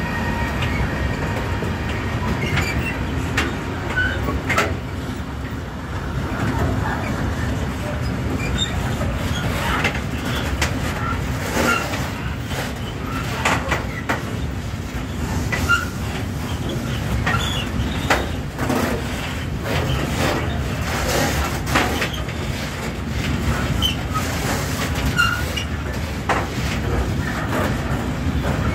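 A freight train of rail tank wagons rolling past: a steady low rumble of steel wheels on the rails, with irregular clicks and clacks from the wheels crossing rail joints and short high squeaks here and there.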